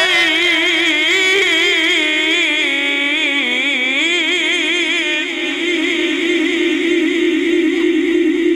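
A male qari's voice in melodic Quran recitation (tajweed), drawing out one long vowel without a break. The pitch winds through ornamental turns for about five seconds, then settles into a long held note with fast vibrato.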